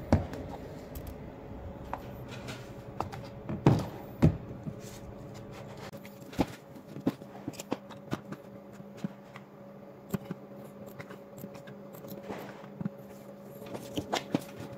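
Light clicks and knocks of a phone and small objects being handled on a table, louder ones near the start and about four seconds in, with a cluster near the end, over a steady low hum.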